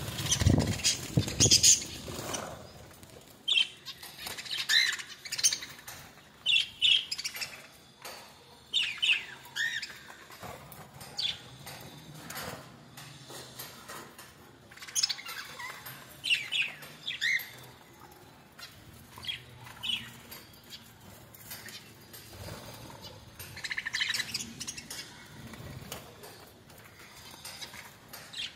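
Small birds chirping in short, high calls, with wings flapping as they come and go. A louder flurry of flapping and rustling in the first two seconds.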